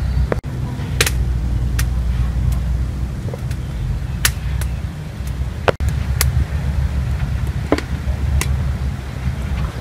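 Wind rumbling on the microphone, with a scattering of sharp clicks and knocks over it, about seven in all.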